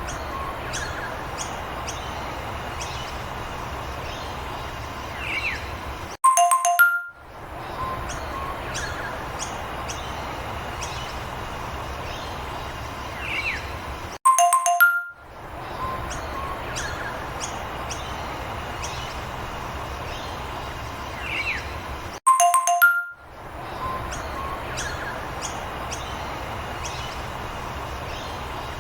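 A short background loop repeating about every eight seconds: each pass opens with a bright chime of a few tones, then runs on as a steady hiss with scattered bird chirps and a quick chirp near its end.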